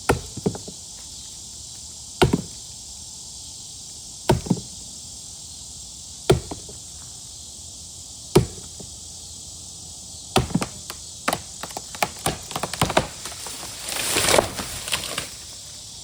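A dull hand tool striking into rotten tree wood: five single blows about two seconds apart, then a quicker run of blows, then a crackle of the wood splintering and giving way near the end.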